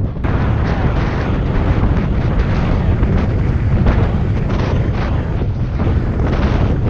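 Heavy wind buffeting on a bike-mounted camera's microphone during a fast downhill descent on a bicycle: a loud, gusty rumble that swells and dips irregularly.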